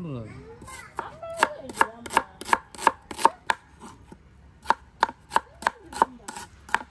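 Chef's knife slicing red onions on a round wooden chopping board: a steady run of sharp knife strokes against the wood, about three a second, with a pause of about a second midway.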